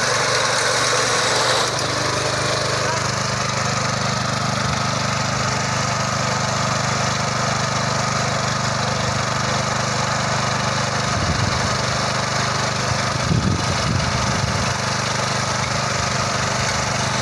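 Small petrol engine of a walk-behind fodder reaper running steadily as the reaper works through dry grass, with the crackle of dry stems at the cutter bar.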